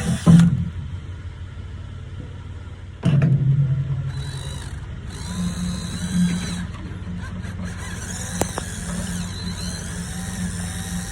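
Power drill drilling out the holes in a metal handle and clamp bracket to 1/4 inch, starting about three seconds in and running steadily under load. A sharp knock comes right at the start.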